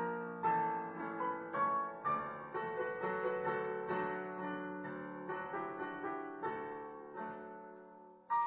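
Digital piano played with both hands: a melody over chords that grows softer and ends on a held, fading chord, then a loud new chord starts the next phrase near the end.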